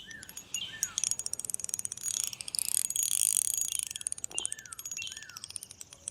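Birds calling with short chirps that slide down in pitch, about five of them, over a fast, steady mechanical ticking.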